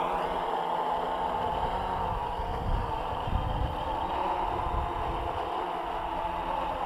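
AEE AP10 Pro quadcopter's motors and propellers buzzing steadily as it hovers and flies low nearby, with a low rumble on the microphone around the middle.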